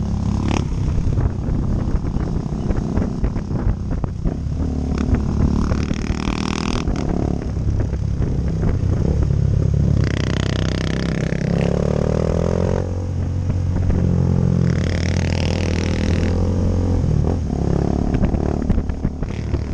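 Motorcycle engine running while riding, a steady drone with louder, higher-pitched stretches about six, ten and fifteen seconds in.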